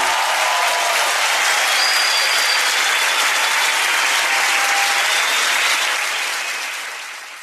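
Theatre audience applauding, a dense steady clapping that fades out near the end.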